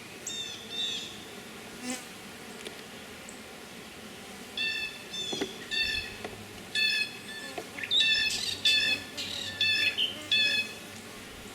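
A bird giving a run of short, harsh calls, about a dozen in quick groups from a third of the way in, after a few brief chirps near the start. Honey bees hum faintly around the open hive underneath.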